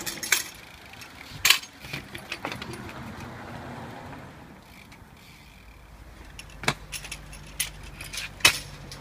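Sharp metallic clacks and knocks of kick scooters and a BMX bike on paving stones, about half a dozen spread out, the loudest about one and a half seconds in and near the end. A low steady hum joins in the second half.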